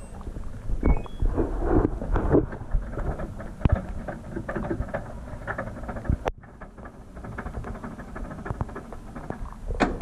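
LG 18 kg top-load washing machine: a short run of rising beeps from the control panel about a second in, then water splashing and pouring into the stainless steel drum. From about six seconds in it is heard from inside the drum.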